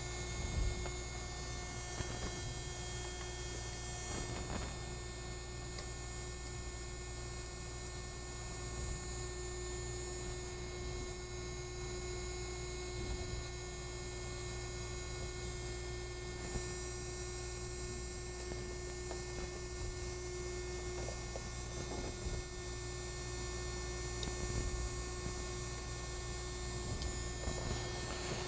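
Steady electrical hum, with a few faint clicks and taps of a hex driver working on the RC motorcycle's metal steering linkage.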